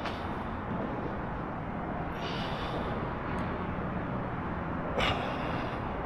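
Steady outdoor background rumble with no clear source, broken by a brief soft hiss about two seconds in and a short, slightly louder rustle about five seconds in.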